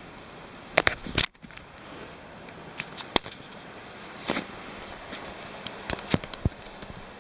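Scattered sharp clicks and knocks over a steady low hiss, with the loudest cluster about a second in.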